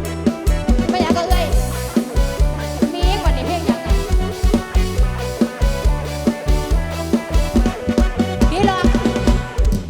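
Live band music in an instrumental passage: a heavy bass drum pounding a steady beat under bass and a wavering lead melody, played through a large sound-truck PA.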